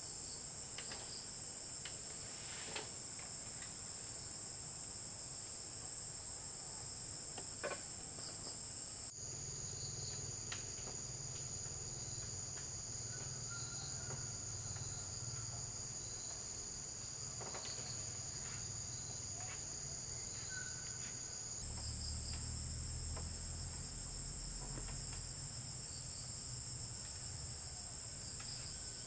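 A steady, high-pitched drone of an insect chorus. Its pitch drops slightly about nine seconds in and rises again a little after twenty seconds, with a few faint clicks beneath it.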